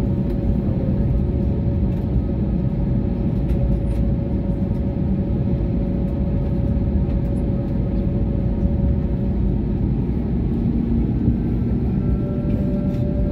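Airliner jet engines and cabin noise heard from inside the cabin while taxiing: a steady low rumble with a steady whine over it, which drops out for a couple of seconds late on and comes back.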